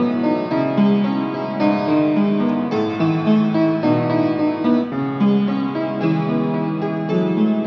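Background music led by a piano, playing sustained notes with a new chord about once a second.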